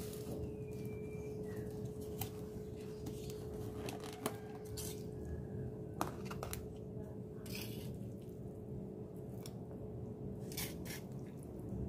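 Stainless steel kitchen tongs clicking and scraping against a stone mortar and a plastic tub as fried tofu pieces are tossed and lifted, with a few sharp clicks, over a steady low hum.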